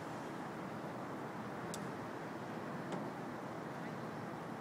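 Steady rumble of city traffic from the elevated expressway overhead, with a couple of faint clicks.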